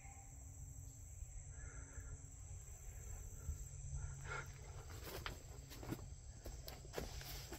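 Quiet woodland ambience with a steady low rumble, and several light knocks and rustles in the second half, as someone moves about inside a wooden shooting box.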